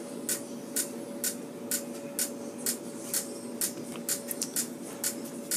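Regular clicking, about two sharp clicks a second, over a faint steady hum.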